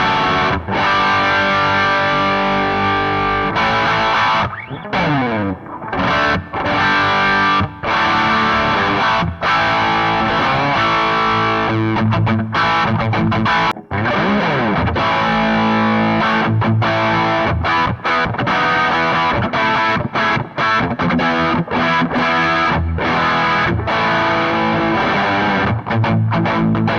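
Electric guitar played through overdrive pedals, giving a distorted tone, playing continuous notes and chords with a couple of sliding notes, about five seconds in and again about halfway through.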